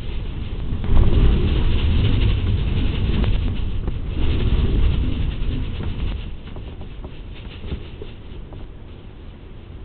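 Storm wind gusting hard, with a heavy rumble of wind on the microphone and a crackling patter over it. It is strongest in the first half and eases after about six seconds.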